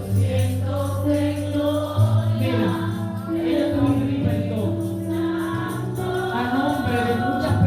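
Gospel worship music: a group of voices singing over sustained keyboard chords and bass, with a tambourine.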